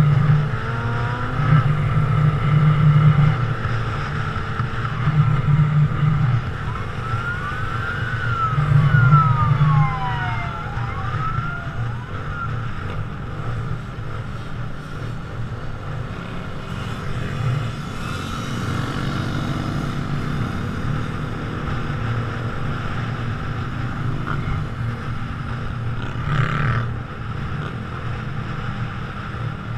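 Motorcycle engine running at highway speed with wind on a helmet camera, surging in the first ten seconds. A police siren wails briefly about a third of the way in, its pitch sweeping up and down.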